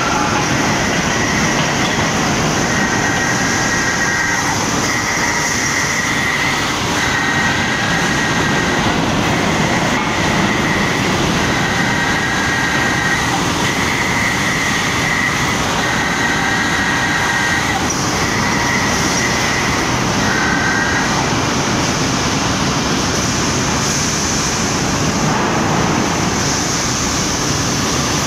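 3-Hi roughing mill and roller table of a hot steel rolling mill running under load as a hot billet is rolled, a steady heavy industrial din. Over it a high squealing tone comes and goes about every two seconds, stopping about two-thirds of the way through.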